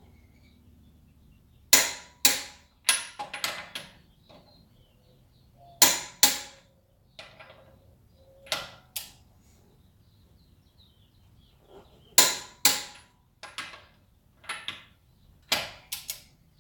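Torque wrench set to 129 lb-ft clicking off as wheel lug nuts reach their specified torque: sharp clicks, mostly in pairs, every few seconds, with softer clicks between.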